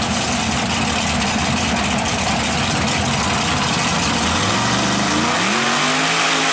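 Supercharged big-block V8 of a mud-race truck running loud at the starting line, then revving up as the truck launches, its pitch climbing from about four seconds in.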